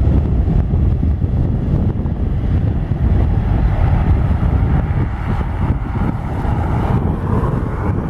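Boeing 737-900ER's CFM56 jet engines at takeoff thrust as the airliner rolls down the runway, largely buried under heavy wind rumble on the microphone.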